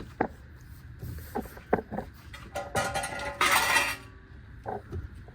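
Handling of a large cardboard box and its packed parts: scattered light knocks, a short squeak and a brief rasping scrape around the middle.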